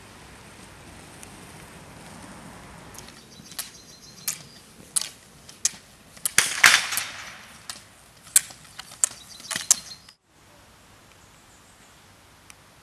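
Rollerski pole tips clicking sharply on asphalt in irregular strikes, starting about three seconds in and loudest as a skier passes close, with the rolling of rollerski wheels. The sound cuts out abruptly near the end and gives way to a quieter steady hiss.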